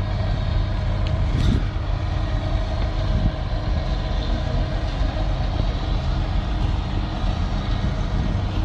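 Concrete mixer truck's engine running steadily, with a brief click about a second and a half in.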